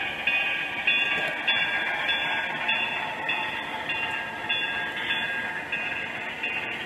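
Model train running along a layout: a steady rolling, rumbling noise with a short high tone repeating about every half second.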